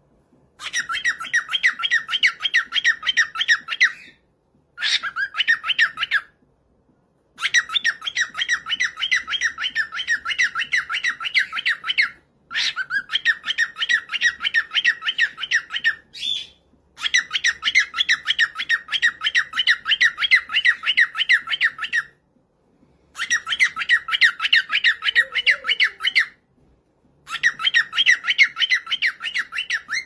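Female cockatiel calling: rapid runs of short, repeated call notes, several a second, in seven bursts of about one to five seconds with brief pauses between.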